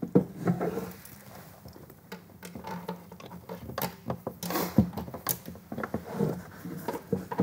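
Handling noise of flat TPS cable being fed through a plywood demonstration board as the board is tipped up: irregular rustles, scrapes and light clicks, with two sharper knocks about five seconds in.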